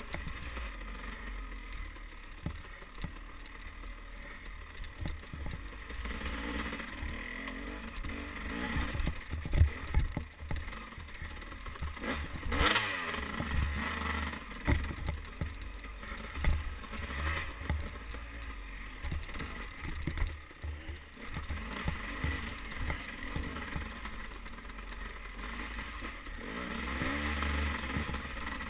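Dirt bike engine running and revving as the bike is ridden over a rough, muddy forest trail. Steady low wind buffeting on the camera microphone, with frequent knocks and clatter from the bumps, the loudest near the middle.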